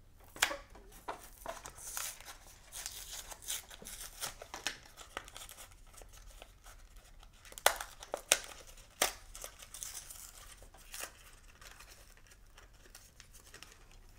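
Blister-packed toy car being torn open by hand: card and clear plastic blister ripping, crackling and snapping in irregular bursts, the sharpest snaps about eight to nine seconds in, then quieter crinkling of the plastic near the end.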